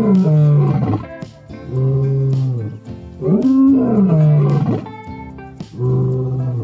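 Male lion roaring: about four long, deep calls in a row, with short pauses between them. Background guitar music plays underneath.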